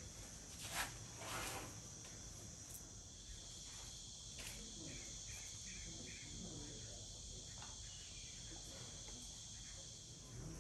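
Steady, high-pitched chirring of insects in the background. Two brief, louder scuffing noises come about a second in.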